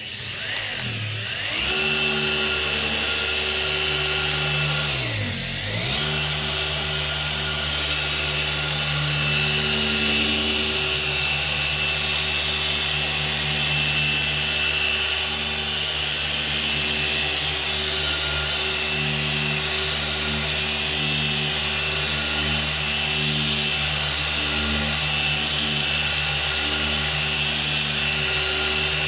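Krauss Shine Master S8 machine polisher running steadily on car paint with a pad and polish. About five seconds in, its speed drops sharply and comes back up.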